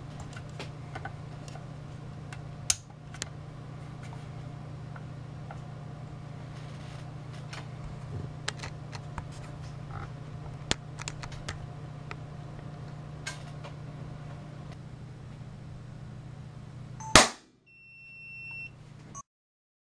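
A steady low hum with scattered faint ticks, then one loud sharp crack about 17 seconds in as a high-voltage discharge arcs over into the damaged UNI-T UT90A multimeter's circuit board. A short high beep follows.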